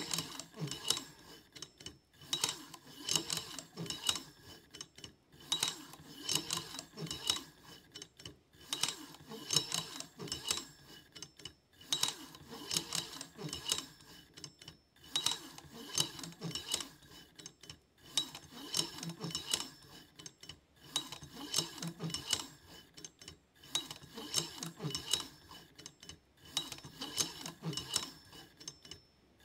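Stepper-motor soft drill turning a safe combination lock's dial back and forth, the lock's wheels and lever clicking and rattling as it spins. Runs of clicking a couple of seconds long repeat about every three seconds with short pauses between, one sweep for each contact-point reading as the drill maps the lock's wheel pack.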